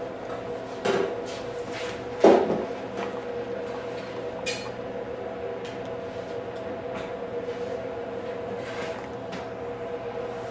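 Scattered knocks and clatter, the loudest about two seconds in, over a steady electrical hum of shop equipment.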